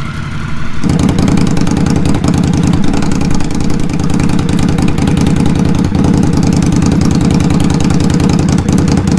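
Indian Scout Bobber V-twin idling, first briefly through its stock mufflers. After a cut about a second in, it idles through York Shorty GP slip-on mufflers, clearly louder and fuller, holding a steady idle.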